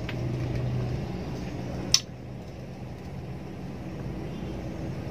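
Car engine and road noise heard inside the cabin, a steady low hum, with one sharp click about two seconds in.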